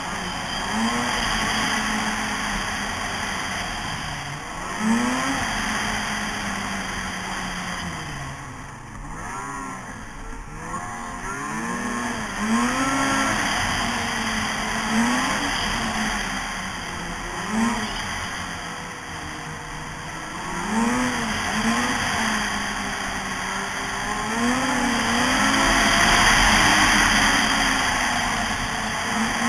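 Snowmobile engine running while riding, its pitch rising and falling again and again as the throttle is opened and eased, over a steady rushing noise.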